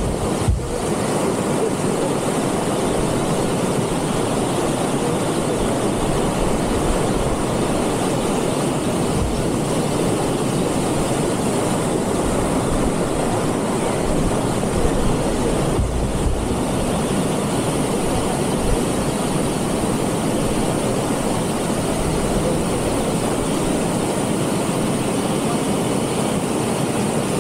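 White-water mountain stream cascading over boulders: a loud, steady rush of water.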